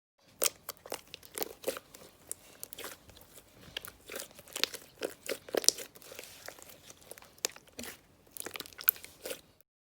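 Slime with foam and plastic beads being squeezed and worked by hand, giving irregular crunching, crackling and popping clicks.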